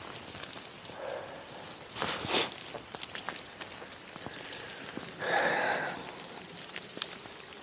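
Water dripping in a limestone cave: scattered faint drips throughout. There is a brief noisy swell about two seconds in and a louder, breathy swell lasting under a second about five seconds in.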